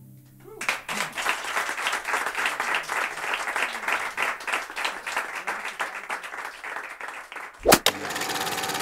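Small audience applauding, starting about half a second in as the last drum notes die away. Near the end the applause breaks off with a sudden loud thump.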